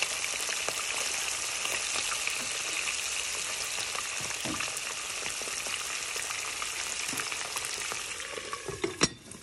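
Chicken drumsticks frying in hot oil, a steady sizzle with small pops. About nine seconds in, a glass lid clinks onto the pan and the sizzle turns muffled and much quieter.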